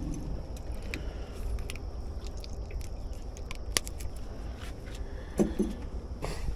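Light clicks and scrapes of hands unhooking a lure from a smallmouth bass's mouth, over a steady low rumble.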